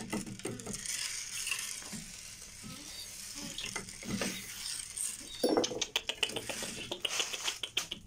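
Seed grain poured from a plastic jar into a wooden feeding trough, a steady rustling hiss, with a run of sharper clicks and taps in the second half.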